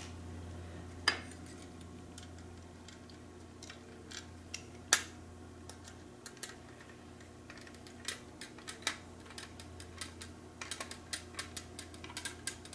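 Small clicks and taps of a hand screwdriver and self-tapping screws against an antenna's plastic boom and aluminum elements as the screws are driven in by hand; a few scattered clicks, then a quicker run of them near the end, over a faint steady low hum.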